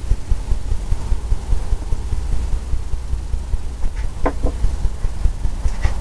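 Steady low background rumble, with a couple of brief light knocks about four seconds in as paintbrushes are picked up from the easel tray.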